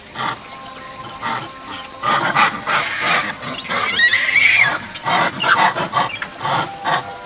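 Japanese macaques screaming and squealing in a fight, a run of harsh shrieks starting about two seconds in, with a long pitched screech about four seconds in.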